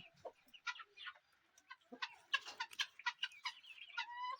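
A flock of free-range chickens and chicks clucking and calling while feeding, with many short calls overlapping and busiest around the middle. Near the end one bird gives a longer drawn-out call.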